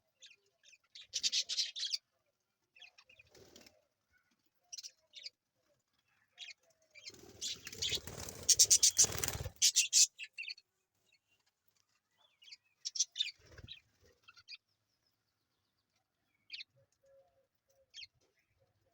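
A baby parrot giving short, high-pitched chirping calls in scattered bursts. A louder flurry of wing flapping and rustling comes about seven to ten seconds in.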